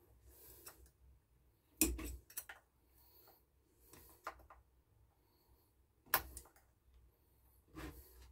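Scattered sharp clicks and light knocks of a hand tool against a Homelite chainsaw's carburettor and housing as the carburettor is worked loose, the two loudest about two and six seconds in.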